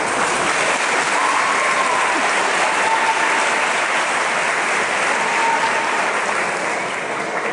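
Audience applauding, swelling at the start and easing off near the end.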